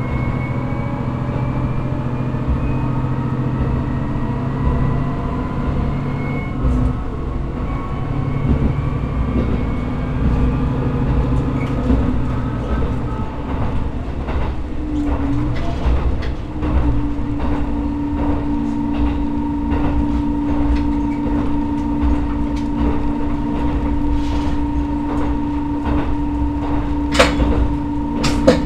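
Diesel railcar under way, heard from the driver's cab. The engine note climbs as the train accelerates, dips about fifteen seconds in, then settles into a steady hum. Wheels clack over the rail joints, more often and louder toward the end.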